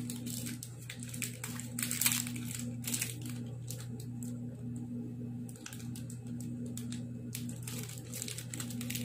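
Plastic and foil chocolate-bar wrappers crinkling and tearing open in short spells of crackling, loudest about two seconds in and again near the end, over a steady low hum.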